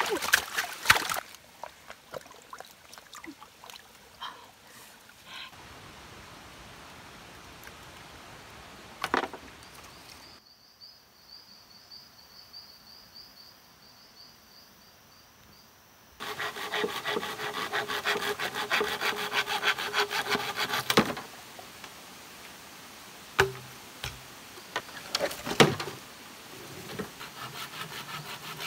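Hand saw cutting through bamboo in rapid rasping strokes, in a run of about five seconds past the middle and again near the end. Water splashes in a shallow stream at the very start.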